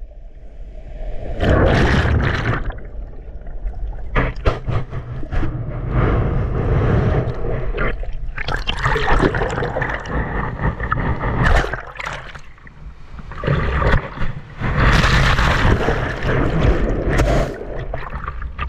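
Seawater sloshing and splashing around a camera held at the surface, with louder surges of water washing over it about 1.5 s in, around 9 s and around 15 s, and sharp clicks of water against the housing.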